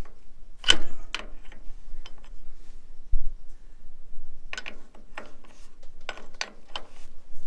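Steel Ferguson spanner being fitted onto the filler bung of a Ferguson TE20's transmission housing and lifted off again: sharp metal clicks and clinks in several clusters, with one dull knock about three seconds in.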